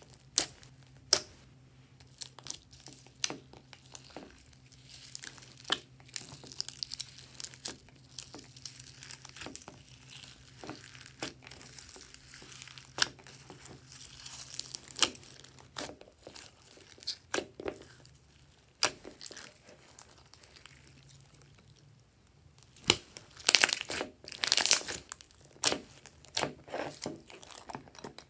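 Hands squishing, stretching and pulling apart glossy slime mixed with foam beads and sequins: irregular sticky crackles, pops and tearing sounds, busiest a few seconds before the end. A faint steady low hum runs under the first half.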